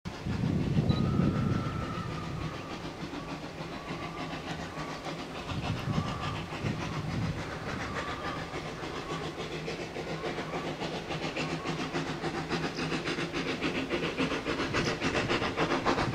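Steam locomotive approaching with a train, its exhaust beating in a steady even rhythm that grows louder as it nears.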